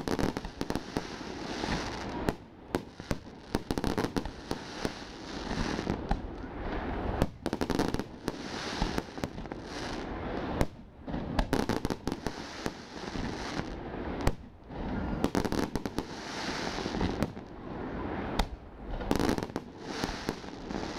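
Fireworks display: many sharp bangs of bursting shells in quick succession, mixed with crackling, with a few short lulls between volleys.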